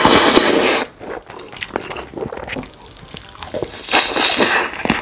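Close-miked eating sounds: a loud slurp in the first second, then quieter chewing with small wet clicks, and another loud slurping bite about four seconds in.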